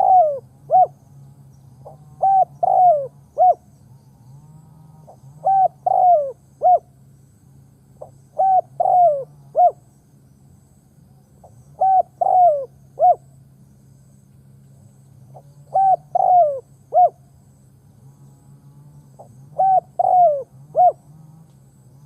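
Spotted dove (decoy bird) cooing its territorial call, a phrase of about four notes: a short note, two longer notes that fall away, then a short closing note. The phrase repeats every three to four seconds, over a faint low hum.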